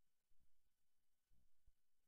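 Near silence, with a few faint, short low thumps.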